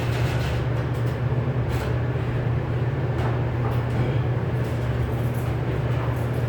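Steady low machine hum, with a few light knocks and clicks scattered through it.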